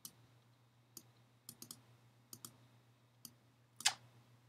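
Computer mouse clicking, about ten sharp clicks, several in quick pairs, with one louder click shortly before the end, over a faint steady hum.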